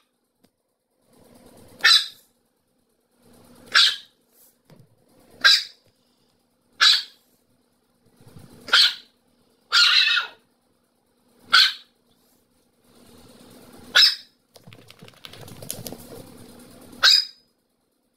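A dog barking: short single barks one to two seconds apart, about nine in all.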